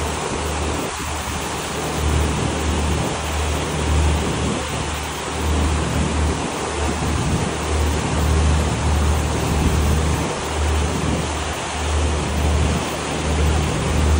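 Wind buffeting the microphone in uneven low gusts over the steady rush of water churned up in a boat's wake.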